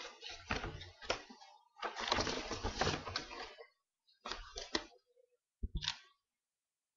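Paper envelope and card being handled, rustling and crinkling in four short bursts with sharp clicks, the longest about two seconds in.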